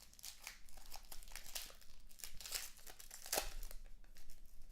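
Plastic wrapper crinkling and tearing as a pack of trading cards is opened, a run of quick crackles with one sharper tear about three and a half seconds in.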